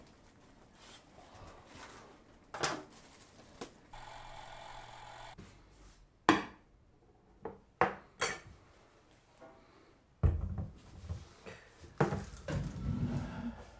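A plate, plastic bottles and a plastic cup set down on a wooden table: a few sharp clacks and knocks, then heavier thuds and handling from about ten seconds in. A brief steady hum about four seconds in.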